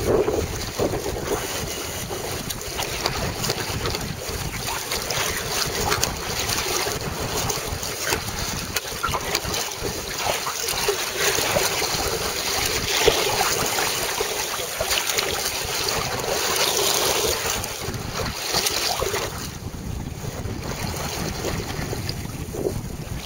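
Wind buffeting the microphone over water rushing and splashing along the hull of a sea kayak under sail in choppy water.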